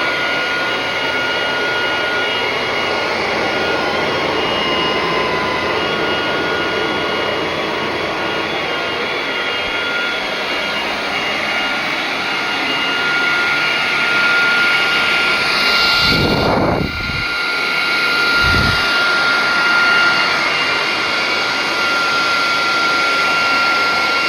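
Atvel G9 cordless handheld vacuum cleaner running steadily on carpet, a high motor whine over rushing airflow. About two-thirds of the way in the sound briefly dips, and there are two low thuds.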